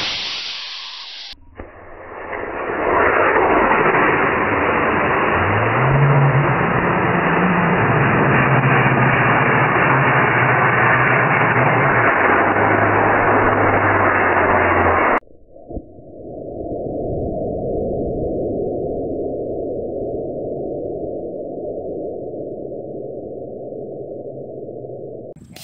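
Estes C6-3 black-powder model rocket motor's launch rush, played back slowed down as a deep, steady rushing noise. It gets duller twice, at about a second and a half in and about fifteen seconds in. A low tone rises and holds for several seconds from about five seconds in.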